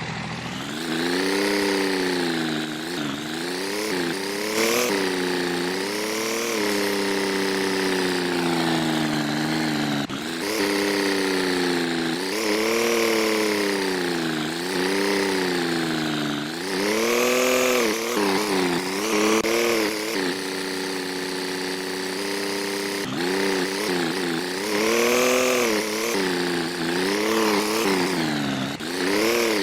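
An engine running, its pitch rising and falling again and again as it is revved and eased off.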